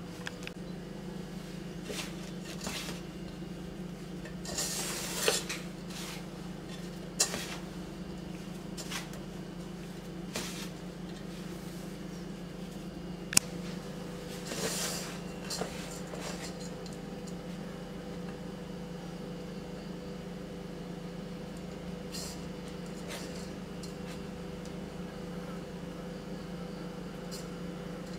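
Hands rubbing and crumbling a wheat-flour mixture in an aluminium pot: soft rustling and a couple of short scraping bursts, with scattered sharp clicks and knocks against the metal pot, the sharpest about two-thirds of the way in. A steady low hum runs underneath.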